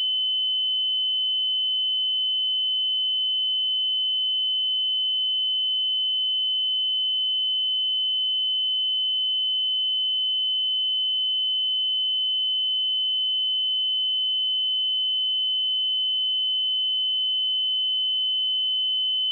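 A steady, unbroken 3038 Hz sine-wave test tone: one pure high-pitched note at constant loudness, for checking speakers or headphones.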